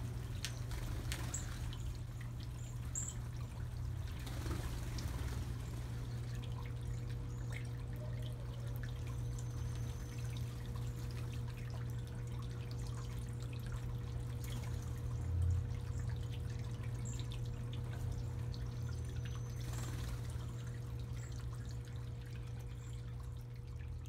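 Small rock fountain in a bird bath, water trickling and splashing steadily.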